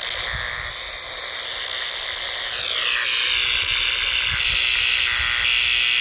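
Power-line noise coming through an Icom IC-R30 communication receiver's speaker: steady hissing static, with a tone sliding down in pitch about two and a half seconds in. The owner blames it on a bad or loose ground or a lightning arrester at the nearby transformer.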